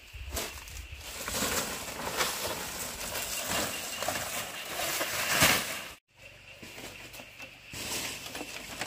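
Dry palm-leaf thatch rustling and crackling, loudest just before it cuts off abruptly about six seconds in. It gives way to quieter outdoor ambience.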